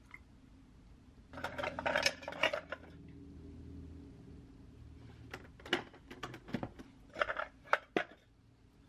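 An open metal tin of coffee capsules being handled: a dense run of clinks and rattles about a second in over a faint low hum, then a string of separate sharp clicks and clinks from about five seconds in.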